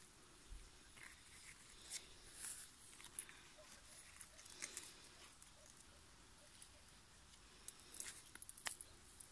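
Near silence, broken by a few faint, short rustles and clicks as grass and leaves brush past the handheld phone.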